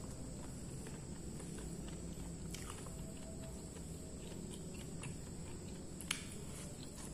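Close-miked eating by hand: fingers scooping rice from a paper wrapping, then chewing, with a sharp click about six seconds in.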